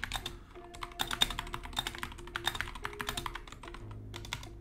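Typing on a computer keyboard: a quick, irregular run of key clicks that thins out near the end.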